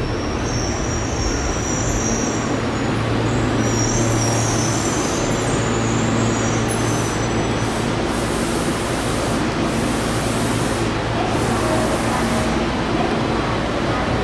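Yokohama Municipal Subway Blue Line train pulling into the platform and braking to a stop, running steadily with a low hum in the first half. In the second half there is on-and-off hissing.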